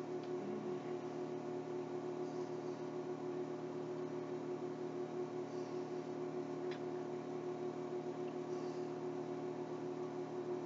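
A steady low hum made of several held tones, with no speech over it.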